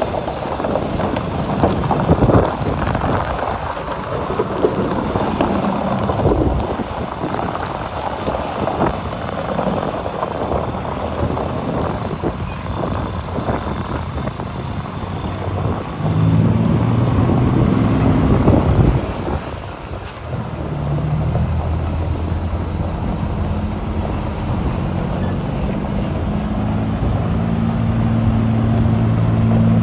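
Heavy diesel truck engine running, at first a dense rumble with wind noise on the microphone, then from about halfway a steady deep idle that drops out briefly and comes back, growing a little louder near the end.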